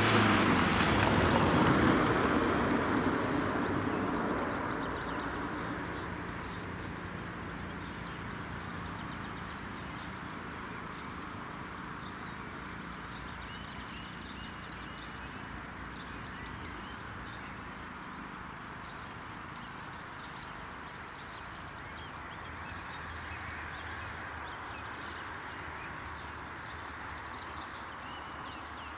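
An estate car drives over the railway crossing and past, its tyre and engine noise loudest in the first two seconds and fading away over the next few. Afterwards there is a steady quiet outdoor background with birds chirping now and then.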